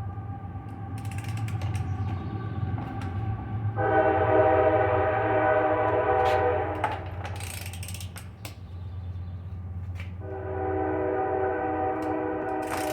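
Ratchet wrench clicking in short strokes as it works rusted, seized exhaust-header bolts back and forth. Two long steady tones, each about three seconds, stand out above a low hum, the first the loudest part.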